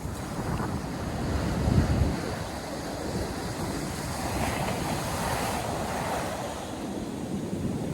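Ocean surf breaking and washing up the beach in a steady hiss, with wind buffeting the microphone in low gusts. The strongest gust comes about two seconds in, and a wave washes in more loudly between about four and six seconds.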